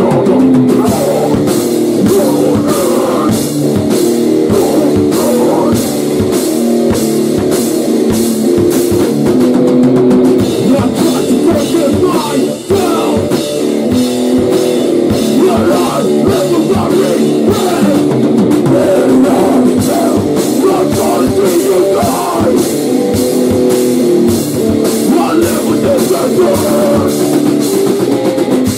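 Rock band playing loud distorted electric guitar over a drum kit, with cymbals struck about twice a second.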